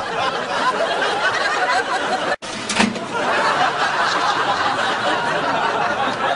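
An audience laughing, a dense crowd laugh that breaks off for an instant at a sudden cut about two and a half seconds in, then carries on.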